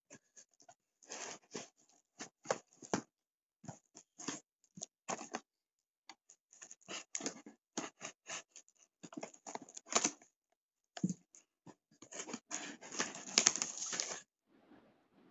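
Packing tape and cardboard flaps of a postal box being picked at and torn open by hand: a series of short, scratchy crackles at irregular intervals, with a longer, denser stretch of tearing near the end.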